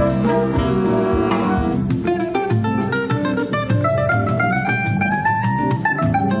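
Instrumental choro music led by plucked strings such as guitar; a melody line climbs steadily note by note from about four seconds in.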